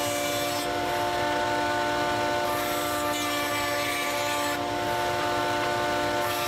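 Electric router with a bearing-guided rabbeting bit running steadily while cutting a rabbet in wood: a constant motor whine under cutting noise that swells and eases a few times as the bit takes the wood.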